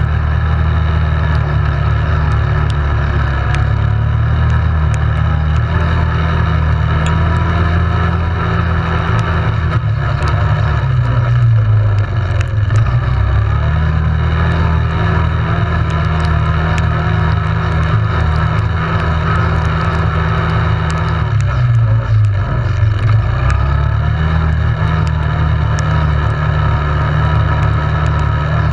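Yamaha Grizzly 700 ATV's single-cylinder engine running steadily on the trail. Its note drops and climbs back twice, as the throttle is eased and reopened.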